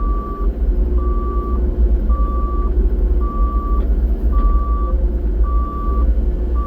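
Caterpillar excavator's alarm beeping steadily about once a second, a single high-pitched beep, over the machine's engine running with a loud low drone.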